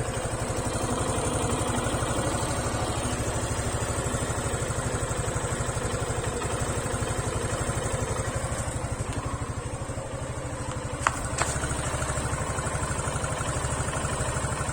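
Suzuki Gixxer SF's single-cylinder engine idling steadily at about 1,500 rpm, with two short clicks about eleven seconds in. To the owner's ear it makes no abnormal noise.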